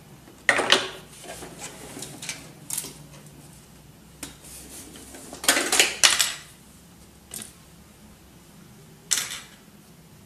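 Hard plastic clicks and clatters from an HP F2410 all-in-one printer's casing as it is worked apart and its top section is lifted off, in irregular bursts with the loudest clatter a little past halfway and another near the end.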